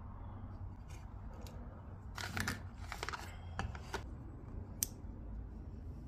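Light handling noises of a peeled sticker and a hydraulic brake lever: a scattering of faint clicks and rustles over a low steady hum.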